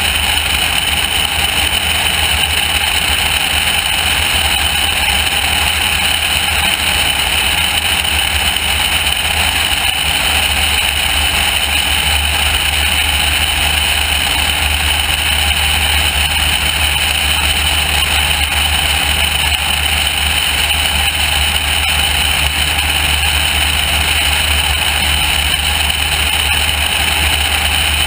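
Loud, steady wind noise rushing over an externally mounted camera, with the drone of a small high-wing airplane's engine holding steady in cruise flight underneath.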